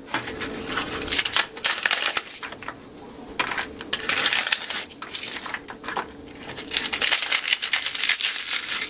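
Crisp fried rice papads (chawal ke papad) being broken and crushed by hand, giving dry crackling and crunching in three long bursts with short pauses between. The crackle is a sign of how crisp the papads are.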